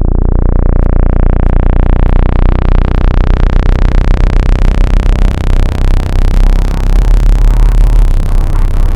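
Synthesized water-eject tone: a loud, very deep buzzing tone whose sound grows steadily brighter and harsher, with its level wavering in the second half. It is played to vibrate trapped water out of earbud speaker mesh.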